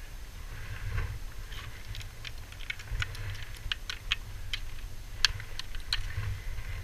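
A run of sharp clicks and taps, more than a dozen in a few seconds, from scrambling on rock: boots, hands and gear knocking against stone. Under them runs a steady low rumble of wind on the microphone.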